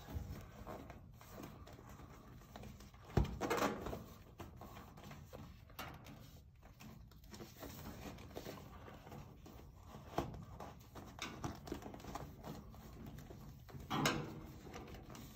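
Handling noise of a flexible plastic exhaust duct being pulled onto a laser cutter's metal exhaust port: crinkling and rustling of the ribbed duct with small clicks from the metal hose clamp, a sharp knock about three seconds in and a louder rustle near the end.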